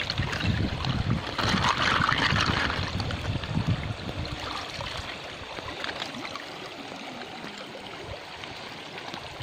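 Shallow river water sloshing and trickling as a pan of river snails is swirled and rinsed in it. The sloshing is loudest in the first few seconds, then settles to a steadier trickle.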